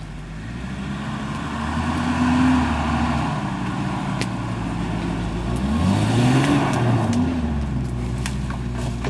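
Vehicle engine running and being revved: it rises and holds for a second or so, settles back, then revs up again sharply about six seconds in and falls back to a steady run.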